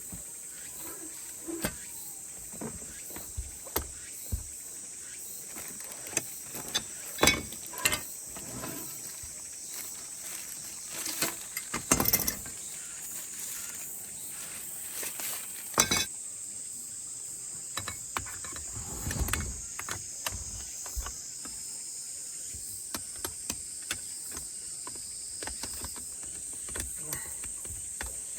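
Steady high-pitched insect buzzing, with scattered sharp clicks and knocks of objects being handled, the loudest about 7, 12 and 16 seconds in.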